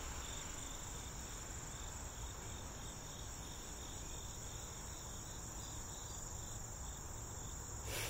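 Insects, by their sound crickets, trilling steadily in a high, continuous note, with a fainter, lower chirp pulsing on and off beneath it.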